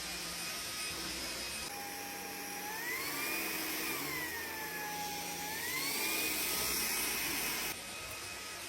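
Lightweight vacuum cleaner running through a pass. Its motor whine rises and falls in pitch twice, and the suction hiss gets louder for most of the pass before dropping back near the end.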